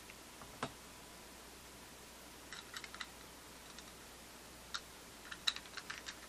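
Clicks of a Sig Sauer P238 .380 pistol being handled by hand as its slide and magazine are worked: one sharp click about half a second in, then small clusters of clicks and rattles, busiest near the end.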